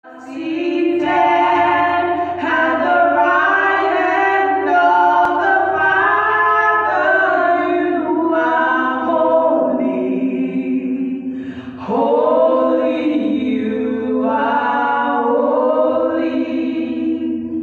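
A woman singing a worship song into a microphone, without instruments, with a short break about two-thirds of the way through before the line picks up again.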